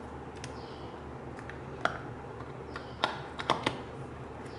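Sharp clicks and taps of hard plastic as the iPhone 5 accessories, the clear EarPods case and the charger plug, are handled and set back into the cardboard box. One click comes a little before two seconds in, then a quick cluster of four comes between three and three and a half seconds, over a steady low hum.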